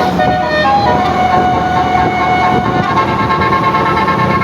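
A bus's 'telolet basuri' multi-tone horn playing a melody: a couple of short notes, then a lower note held for about two seconds, then a higher note held until near the end, over a low rumble.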